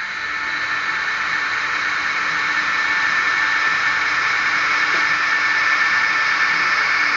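DCC sound decoder of a Fleischmann N-scale Re460 model electric locomotive playing its running sound: a steady hiss with a faint hum underneath, slowly growing louder.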